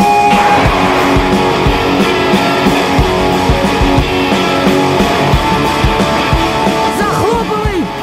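Rock music with guitar over a steady drum beat.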